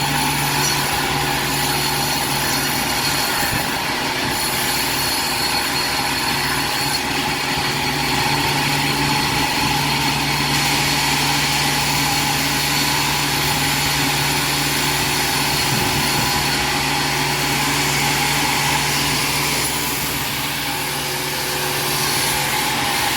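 Sawmill machinery running steadily: a continuous mechanical drone with a low hum and a few steady higher whining tones, without clear cutting strokes or impacts.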